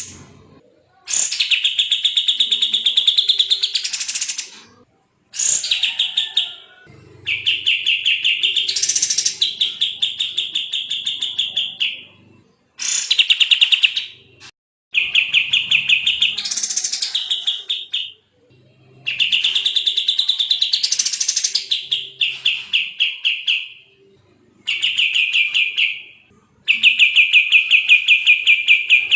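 Kapas tembak songbird singing in fast, dense rapid-fire phrases: long trains of quickly repeated chattering notes, each burst lasting about three to four seconds, with short pauses of about a second between them.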